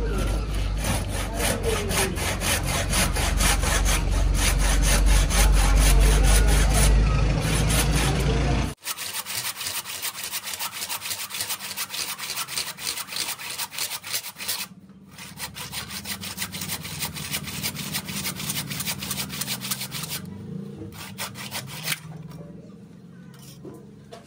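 Hand saw cutting wood in quick, repeated back-and-forth strokes, with a steady low rumble under the first part. The sound changes abruptly about a third of the way in, pauses briefly around the middle, and the sawing stops shortly before the end.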